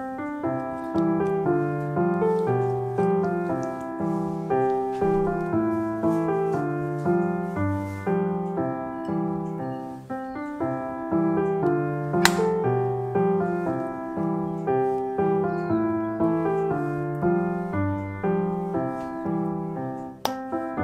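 Background piano music with a steady pace of changing notes, and a single sharp click about twelve seconds in.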